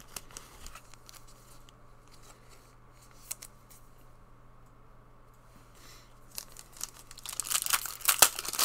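Foil wrapper of a Donruss football trading-card pack crinkling and tearing open, starting about six seconds in and loudest near the end, after a few faint handling clicks.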